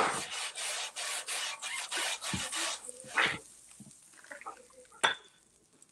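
Kitchen handling noise: rapid rustling and scraping strokes for about two and a half seconds, then a brief burst, a few soft knocks, and one sharp click about five seconds in.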